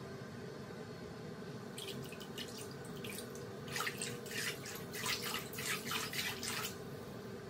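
A hand swishing through bathwater in a tub: light splashes from about two seconds in, then a denser run of sloshing splashes for about three seconds, over a faint steady hum.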